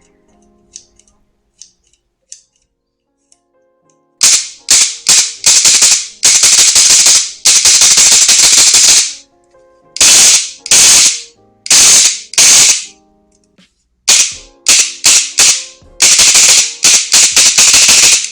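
An airsoft electric gun's split gearbox with a brushless motor is test-fired, starting about four seconds in. It gives a few single shots and bursts of rapid full-auto cycling up to about two seconds long, in three groups.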